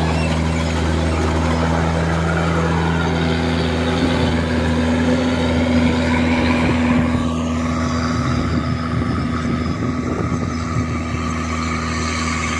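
DC-105 rice combine harvester working through a standing rice crop: its diesel engine and cutting and threshing gear running at steady working speed, a constant low drone with a noisy mechanical clatter over it.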